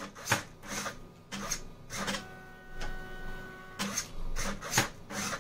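Stepper motor driving a 3D-printer extruder feed gear whines steadily as it pushes wire through, broken by a servo-driven cutter arm snapping across to cut it, with sharp clicks about once a second.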